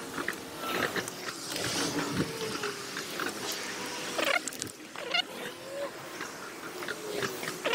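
Bicycle action-camera audio played back at six times speed: rapid clicks and rattles with short, high, gliding squeaks and a brief warble about five seconds in.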